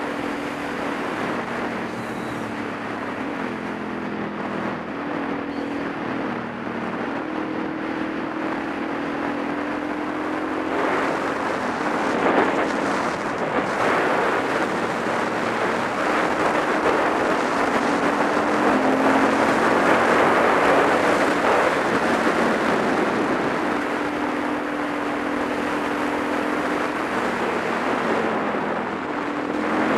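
Supermoto motorcycle engine running at road speed, its pitch stepping up and down with throttle and gear changes, under heavy wind rush on the microphone that swells midway and again about two-thirds through.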